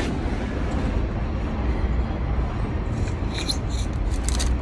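Steady low background rumble, with a cluster of short rustling scrapes and clicks near the end as a soil moisture meter's probe is pushed into potting soil.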